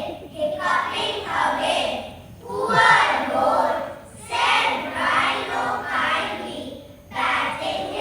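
A group of children reciting a poem in unison, in four phrases with short breaks between them.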